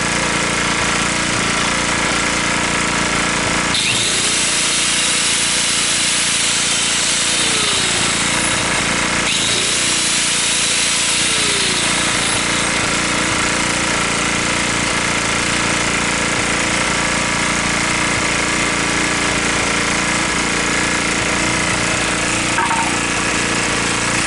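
Small 2 kW generator's engine running steadily at constant speed. About four seconds in, a 4-inch angle grinder powered from it starts up, adding a high whine, and runs on with the generator.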